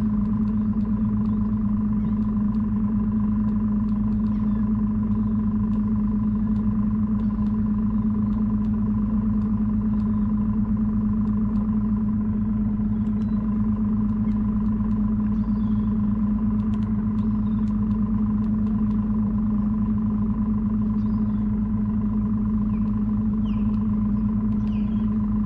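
Boat's outboard motor running steadily at idle, a constant hum with a steady low tone.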